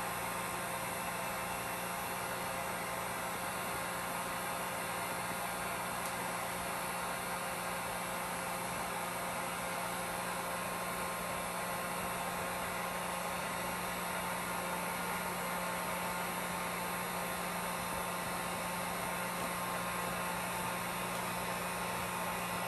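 Heat gun running: a steady rushing hiss from its fan with a low electric hum.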